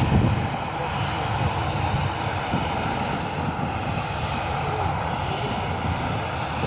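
Airliner jet engines running, a steady continuous noise across the airfield, with a brief louder thump at the very start.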